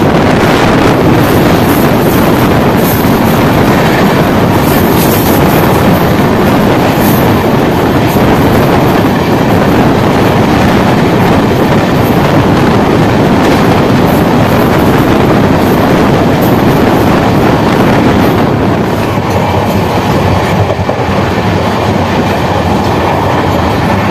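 Two express trains passing each other at speed: a loud, steady rush of wheels on rail and moving air as the oncoming train's coaches go by close alongside, heard from the open side of the moving train, easing slightly near the end.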